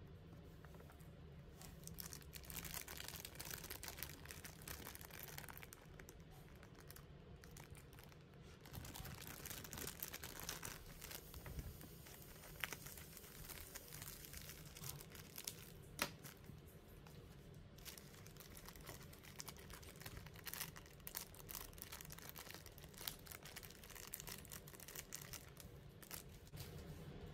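Thin clear plastic bag crinkling and tearing as it is handled and cut open with scissors. Sharp clicks now and then, one louder about halfway through, as small plastic miniature pieces are handled and set down on a table.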